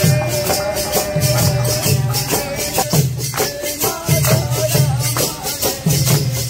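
Live music playing: a drum beats a repeating pattern under a quick, even rattle of jingles, with a wavering melody line above.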